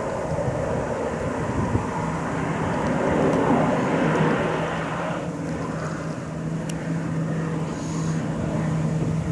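The engine of a small single-engine water-bomber float plane droning in the distance as it makes its water drop and climbs away. It grows louder for a couple of seconds, then falls back sharply about halfway through.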